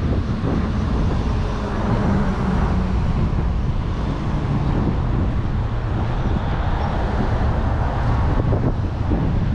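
Wind rumbling on the microphone over steady street traffic noise.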